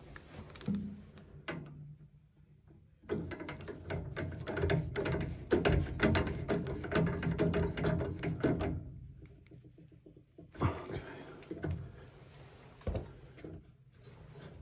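Rapid clicking and rattling of hand tools and metal furnace parts being handled, heaviest from about three to eight and a half seconds in, with a few scattered clicks around it over a low steady hum.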